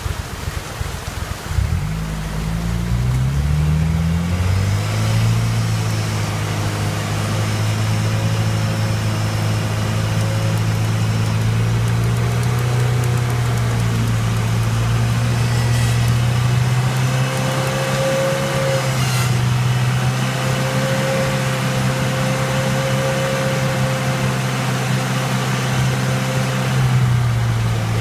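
A rock buggy's engine picks up revs about two seconds in and then runs at a steady, held pitch as the buggy crawls over a creek waterfall ledge. Rushing water runs underneath.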